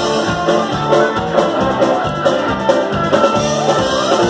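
Live rock band playing an instrumental passage between sung verses: guitar and keyboard over a steady drum beat.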